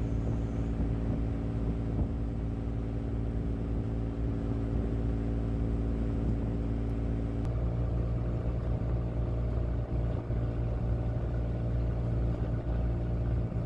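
Car ferry's engines running with a steady, low drone. The pattern of the hum changes slightly about halfway through.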